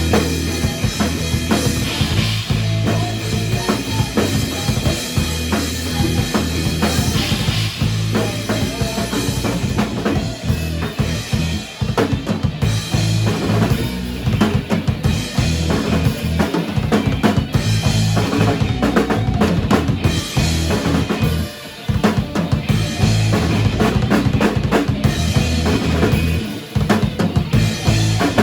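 Band music: a drum kit keeping a steady beat with bass drum and snare over a heavy bass line, with brief breaks in the beat about two-thirds of the way through and again near the end.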